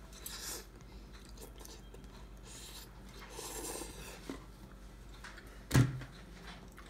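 A person slurping and chewing hot, spicy instant ramen noodles, with a few short hissy slurps and breaths. A sudden thump near the end is the loudest sound.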